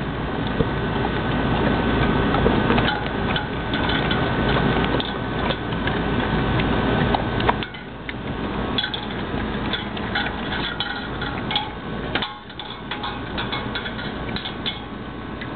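Two mastiffs eating raw chicken backs from stainless steel bowls: wet chewing and crunching of bone, with irregular clicks and clinks of the metal bowls on their stand.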